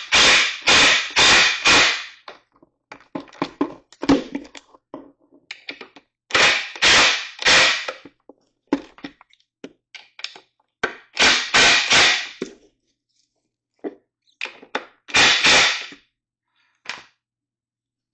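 Cordless DeWalt impact driver hammering screws tight into the wooden stool frame. It comes in four clusters of short bursts a few seconds apart, with lighter clicks and knocks of the tool and parts in between.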